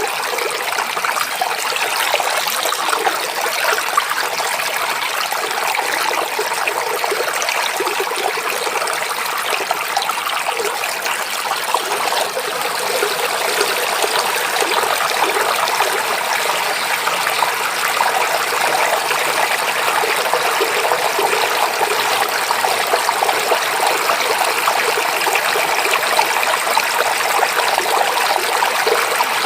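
Forest stream babbling steadily as water runs over rocks, an even rushing splash.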